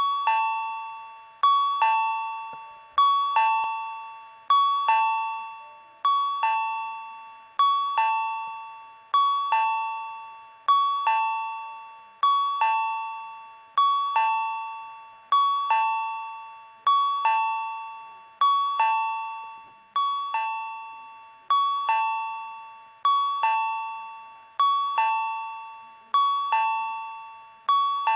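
Tobu Railway train-approach chime: a two-note high–low ding-dong struck over and over, about once every one and a half seconds, each stroke dying away before the next.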